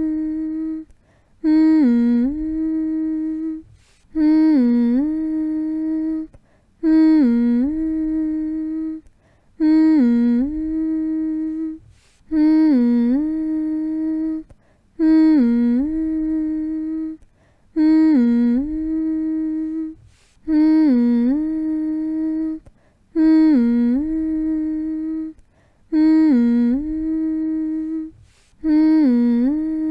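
A person humming the same short phrase over and over, each hum dipping briefly in pitch, then holding one steady note for under two seconds, with a short pause before the next, about one every two seconds. A soothing hum for lulling a baby to sleep.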